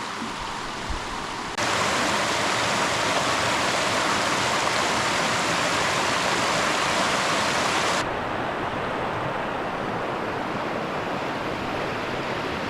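Rushing creek water, a steady hiss that jumps louder about a second and a half in and drops back about eight seconds in.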